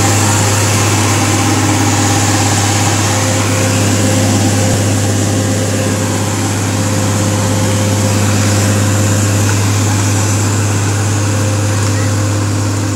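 Mercedes-Benz Actros 3340 truck's diesel engine running steadily as the loaded tanker crawls through mud: a loud, low, even drone that holds one pitch throughout.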